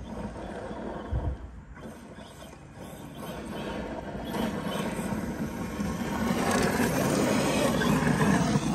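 ARRMA 6S brushless RC truck driving over gravel: its motor and the tyres on loose stones grow louder as it comes closer, and are loudest near the end. A short thump about a second in.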